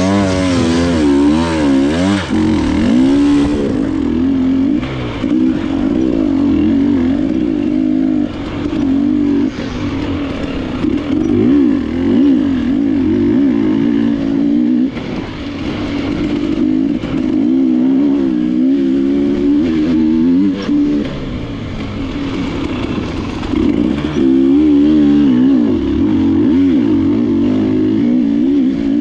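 KTM enduro motorcycle engine running hard on the trail, its pitch rising and falling constantly with the throttle, with a short easing-off a few times.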